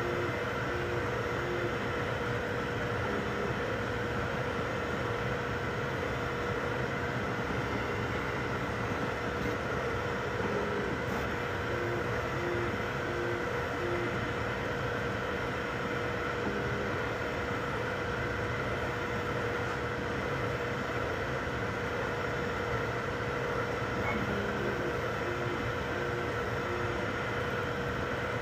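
Desktop 3D printers running mid-print: a steady fan hum with a constant tone, and short runs of brief stepping tones from the motors moving the print head.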